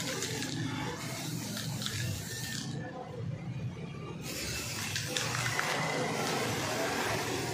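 Aerosol spray-paint can hissing in two long sprays of black paint, with a pause of about a second around three seconds in.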